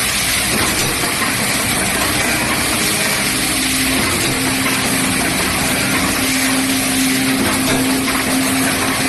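Automatic rotary cap assembly machine running at production speed: a dense, steady mechanical clatter and hiss from its indexing table and pick-and-place heads. A low steady hum joins in about three and a half seconds in.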